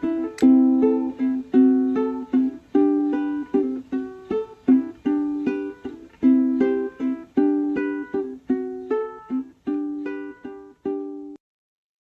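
Background music of plucked strings in a steady rhythm, with roughly two strokes a second, cutting off suddenly shortly before the end.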